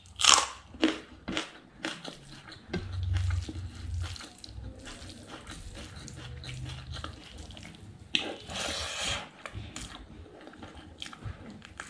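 Close-up mouth sounds of a person chewing pork innards curry and rice, with sharp wet smacks and clicks throughout. A brief hiss-like rush comes about eight seconds in.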